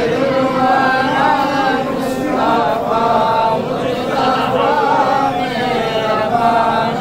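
A group of men's voices chanting devotional verse unaccompanied, in long held phrases whose pitch wavers and bends.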